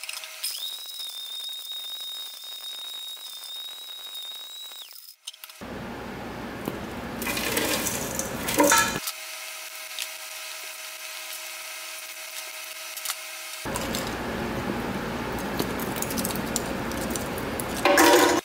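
Bateerun countertop blender running at high speed while pulverizing pieces of laptop circuit board into powder. The sound switches abruptly between runs: first a steady high whine, then a coarse grinding rattle, then a steadier motor hum, then grinding again, with louder clatters about eight seconds in and just before the end.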